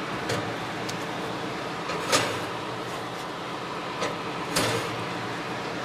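Clay casserole pots being set on a metal oven rack: several light knocks and clinks, the loudest about two seconds in, over a steady background hum.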